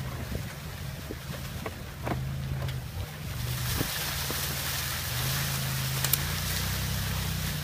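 Small engine of an off-road vehicle running steadily at low speed while driving over a leaf-covered woodland trail, with scattered sharp clicks and knocks. A broad hissing rush grows louder about three and a half seconds in.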